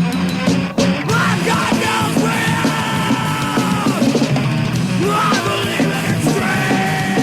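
Thrash metal with a punk edge played by a full band, with distorted guitar, bass and drums, and shouted vocals. Long held notes bend downward as they end, and there is a brief break under a second in.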